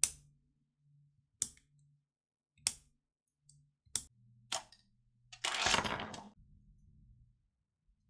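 3D-printed plastic clicking fidget button, printed in silk PLA and PETG, pressed by hand: five sharp single clicks roughly every second and a half, then a denser, louder flurry of clicking lasting about a second, just past the middle.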